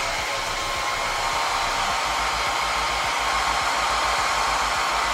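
Handheld hair blow dryer running steadily, drying a freshly sprayed layer of wig glue spray.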